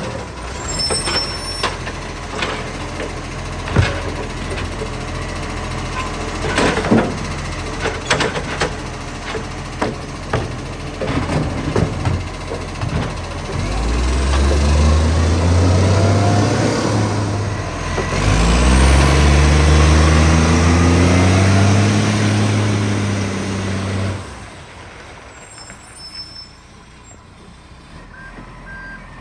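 Side-loader garbage truck SL757 at work, with the truck's diesel engine running under a huge exhaust leak. For the first dozen seconds there are knocks and clatter. Then the engine revs up hard twice, holds loud for several seconds and drops back to a quieter idle near the end.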